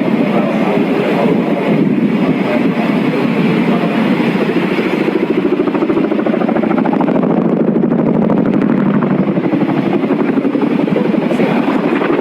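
Military helicopter flying, its rotor blades making a loud, rapid, steady chop.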